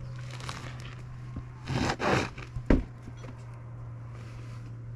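A heavy woven rug being handled and rolled on a cement-block ledge: a rustling, scraping swish about two seconds in, then a single sharp thump. A steady low hum runs underneath.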